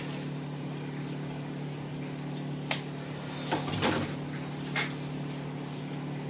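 Handling noise as tools are unpacked: a click about three seconds in, a cluster of knocks and rustles near four seconds, and another click near five seconds, over a steady low hum.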